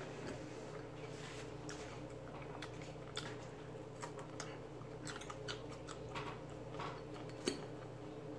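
Quiet close-up eating sounds of a person chewing meat off pork neck bones, with soft mouth clicks and smacks scattered throughout. A sharper click comes near the end.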